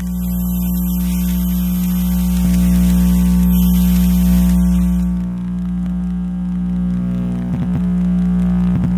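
Electromagnetic interference from electronic devices and appliances, picked up by a radio frequency interference probe: a steady buzzing hum with many evenly spaced overtones under a high hiss. About five seconds in the hiss drops away, and short warbling flutters come in near the end.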